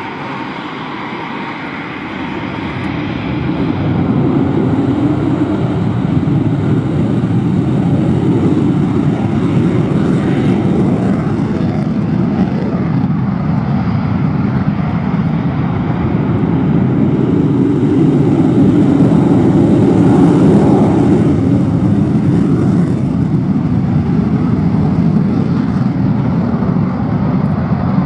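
Jet engine noise from a pair of Eurofighter Typhoon fighters (twin EJ200 turbofans each) at take-off power. The noise swells about three to four seconds in and then stays loud and steady.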